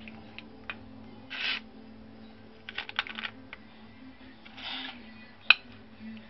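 Plastic spatula scraping and clicking against a ceramic baking dish as a marinated salmon steak is pushed out into a paper-lined bamboo steamer: a few short scrapes, a quick run of clicks, and one sharp click about five and a half seconds in.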